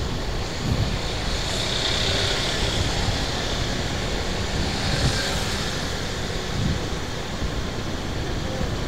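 Steady drone of motor traffic and road noise heard from a moving vehicle on a city street, with motorcycles riding just ahead.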